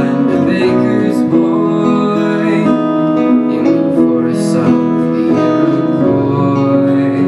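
Acoustic guitar and grand piano playing a song together live.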